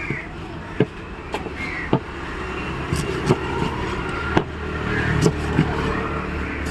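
Heavy curved knife chopping through fish into steaks on a wooden board: sharp, irregular knocks of the blade striking the wood, roughly one or two a second. Under them runs a steady low rumble of road traffic.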